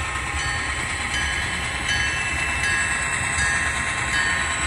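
Diesel locomotive engine sound running steadily: a low rumble under a steady higher hiss.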